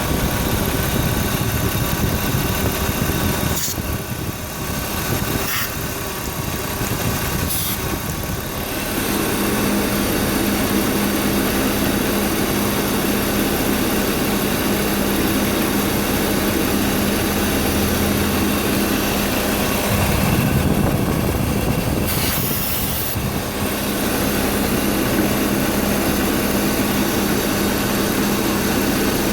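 BMW E36 328i's inline-six engine idling steadily, with a few brief, high hiss-like sounds and two short spells where the engine note dips.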